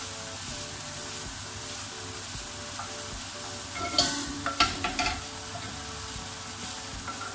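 Food sizzling in a frying pan, a steady hiss, with a few sharp clinks and knocks of a utensil against the pan about four to five seconds in.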